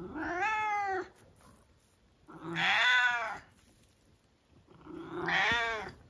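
Turkish Angora cat meowing three times, each call about a second long with short pauses between.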